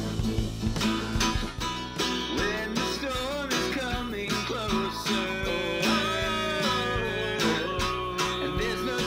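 Instrumental music led by guitar, with pitched lines that bend and slide over a steady drum beat.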